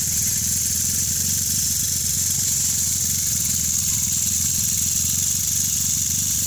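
A small engine running steadily at idle, with a constant high hiss above it.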